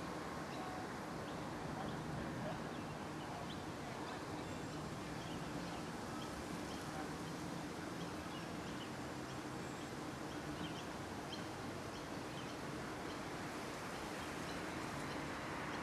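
Steady outdoor background noise with many short, high bird chirps scattered throughout.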